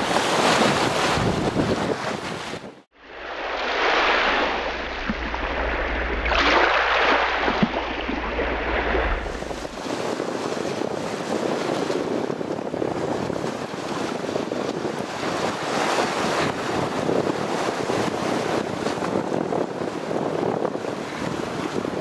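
Wind buffeting the microphone and sea wash from a yacht moving under sail, a steady rushing noise. It drops out sharply for a moment about three seconds in, and changes character again near ten seconds as the footage cuts.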